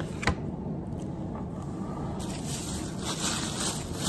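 Hands handling a plastic takeout food container on a table: a sharp click about a third of a second in, then rustling and crinkling from about two seconds on, over a steady low room hum.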